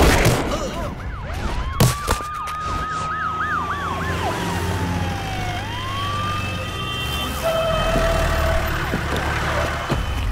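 Police sirens wailing and yelping together, one sweeping up and down quickly while another rises slowly and falls, as police vehicles arrive. A single sharp bang cuts in just under two seconds in, over a low rumble.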